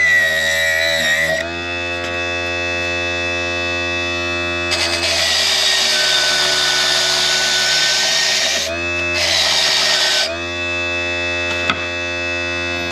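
Electric RC tire-truing machine's motor whining steadily as it spins a rubber tire. A scuffing pad and then a wire brush are held against the tread, adding a rasping hiss from about five to eight and a half seconds and again briefly near ten seconds. This is the break-in stage that scuffs the tread and strips off the mold release agent.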